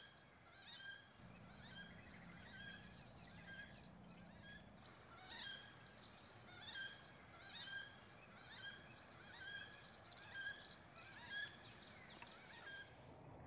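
Wood duck calling: a faint series of short, high pitched calls repeated about once a second.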